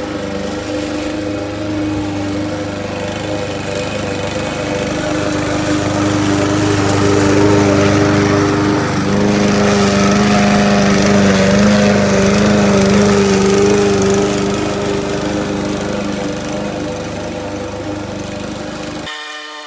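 PowerSmart 161cc self-propelled lawn mower engine running steadily. It grows louder in the middle and then fades. Just before the end it cuts abruptly to music.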